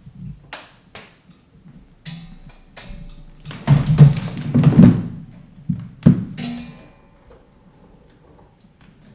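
Power supply cord and its plug being handled and plugged into an embroidery machine: scattered clicks, then a cluster of clunks and rattling about four to five seconds in, and two more sharp knocks shortly after.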